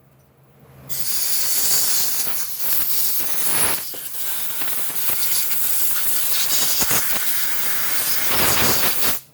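A long, steady pressurized hiss starting about a second in and cutting off just before the end, with a few brief dips, from air or spray being blown through a cleaned brake wheel cylinder before reassembly.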